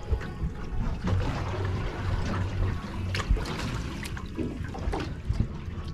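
Water trickling and splashing against a boat's hull at sea, with scattered small knocks.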